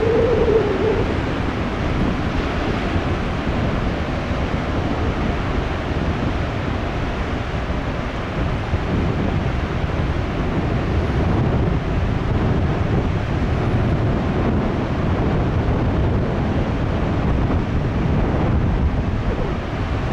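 High surf from a post-typhoon swell breaking continuously on the coast, a steady deep rush of water, with strong wind buffeting the microphone.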